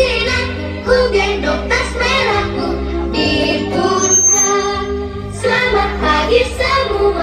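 Children's song: singing over a recorded backing track with a steady bass line.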